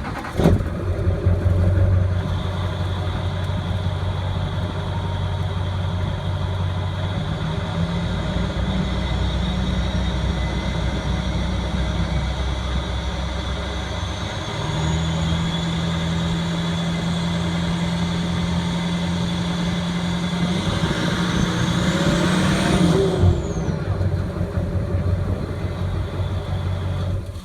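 Duramax diesel engine running with a steady high-pitched turbo whistle. About two-thirds of the way in, the engine is revved briefly and the whistle climbs sharply in pitch, then falls back.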